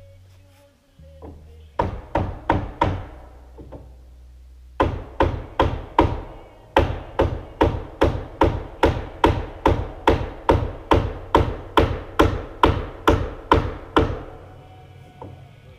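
A hand hammer striking wood over and over, about three blows a second. First comes a short run of four blows, then after a pause a long steady run of blows that stops near the end. Faint low music sits under the first few seconds.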